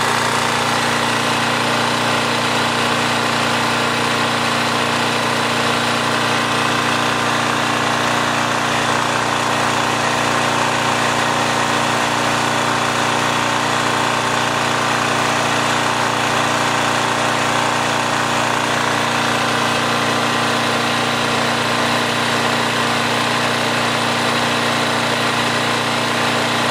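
Coleman Powermate 1500 portable generator's small engine running steadily under a run test.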